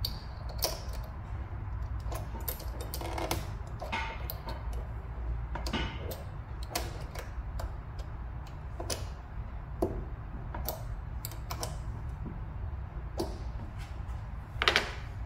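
Small wrench tightening a lock nut onto the threaded end of a foosball player rod against the wooden side panel: irregular sharp metallic clicks, roughly one every second or so, as the wrench is turned and reset on the nut.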